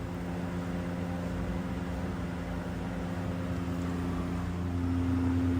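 A motor running steadily with a low, even hum, growing a little louder near the end.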